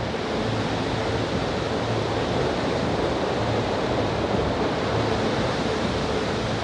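Steady rush of ocean surf breaking on a beach, an even wash of noise without distinct events.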